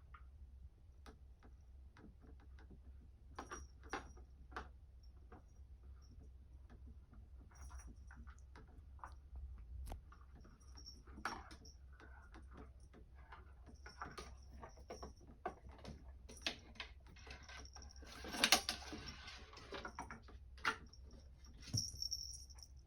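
A cat moving about on a cat tower: scattered light clicks and taps, with a louder burst of scratching about eighteen seconds in, over a low steady hum.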